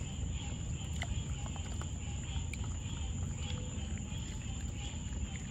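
Raccoon kits paddling and feeling around in shallow water in a plastic kiddie pool, with small splashes and scattered clicks. Behind them is a steady chorus of night insects.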